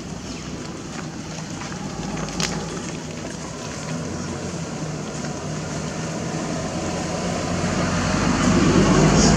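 Steady hum and rumble of a motor vehicle, growing louder near the end, with a single short click a couple of seconds in.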